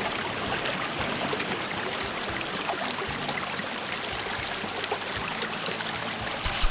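Rushing water of a small mountain stream running steadily over rocks, swollen with runoff after heavy rain. A single low thump near the end.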